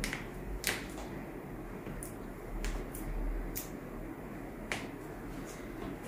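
Toe and ankle joints popping under a chiropractor's manipulation: about seven short, sharp cracks over five seconds, unevenly spaced.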